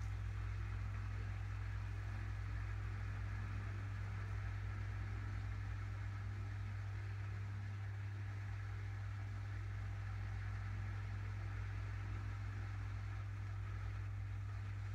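A steady low hum at a constant level, with faint background noise above it.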